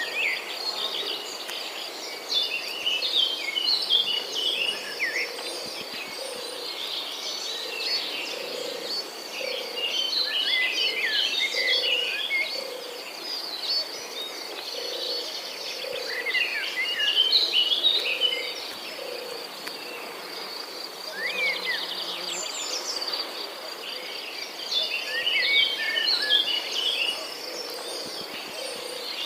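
Morning nature ambience: a steady high insect trill, with bursts of chirping bird song coming and going every few seconds and a low call repeating about once a second underneath.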